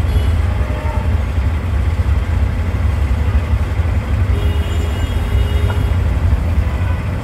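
Steady low rumble of an auto-rickshaw's engine and road noise, heard from inside its open, grille-sided cab. A little past the middle a faint high tone sounds for about a second and a half.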